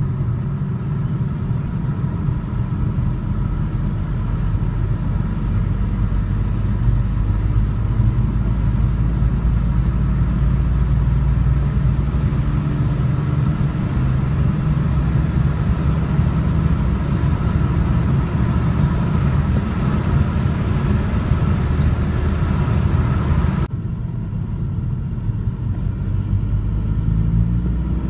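An engine running steadily, its sound mostly low and even. About 23 seconds in, the higher hiss cuts away suddenly while the engine sound carries on.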